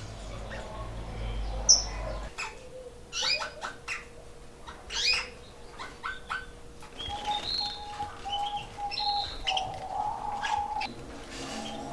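Caged canaries chirping, with quick chirps and then short held call notes, over a faint steady hum.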